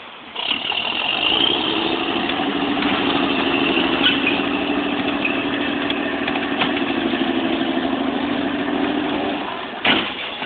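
Military vehicle engine running steadily with an even hum, stopping shortly before the end, followed by a single sharp knock.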